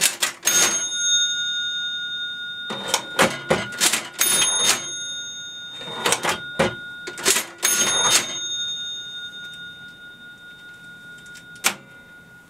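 Antique National Cash Register model 39 being rung up: its keys clack down, the side crank is turned and a bell rings with a tone that hangs on and fades over several seconds. This happens about three times, with one more click near the end.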